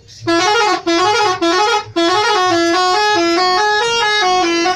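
Bus 'telolet' musical horn playing a tune: three short phrases, then a longer unbroken run of stepping notes.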